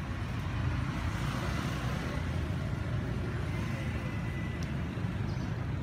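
Steady low outdoor rumble with a fainter hiss above it, unbroken throughout.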